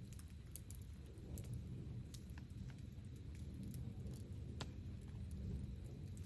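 Campfire burning: wood crackling, with scattered sharp pops at irregular moments over a steady low rumble.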